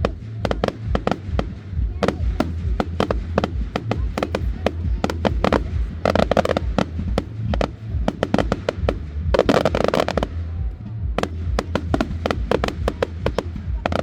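Fireworks display: a rapid, continuous run of sharp bangs from bursting shells, with two longer clusters of crackle about six and nine-and-a-half seconds in.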